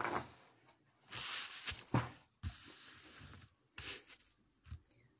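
Sheets of paper rustling and being handled on a tabletop, in several short bursts with a couple of light knocks against the table.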